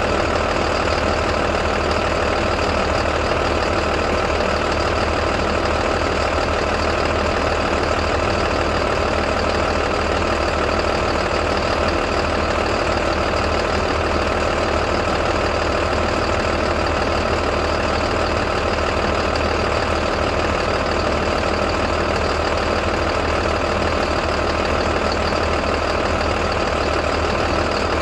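International MaxxForce DT inline-six turbodiesel in a 2012 IC CE school bus idling steadily after a cold start, with no revving.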